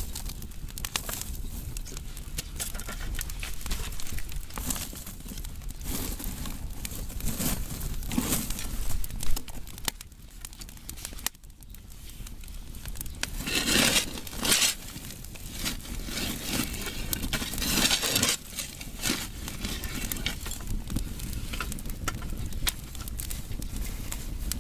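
Burning firewood crackling and popping steadily, with short bursts of hissing about halfway through and again a few seconds later.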